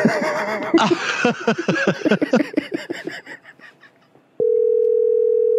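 Laughter over the phone line fading out over the first three seconds, then a steady single-pitch telephone tone comes on about four seconds in and holds.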